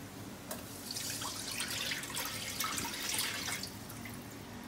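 Water poured from a plastic measuring jug into a nonstick wok, splashing and trickling onto the pan for about three seconds before it stops.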